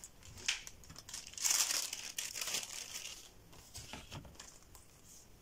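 Thin pattern paper rustling and crinkling as the sheets are handled and slid over one another, in several short bursts that die away near the end.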